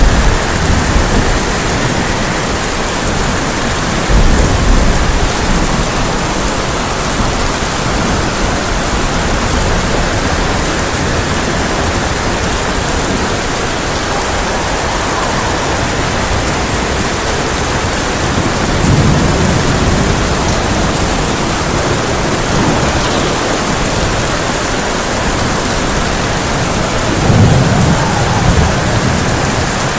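Heavy rain drumming steadily on a tin roof, with thunder rumbling low several times: about 4 seconds in, around 19 seconds and again near the end.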